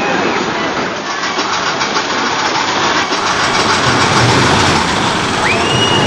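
Roller coaster cars rattling along the track, a steady loud rumble with a clickety-clack. A high held tone slides up and holds near the end.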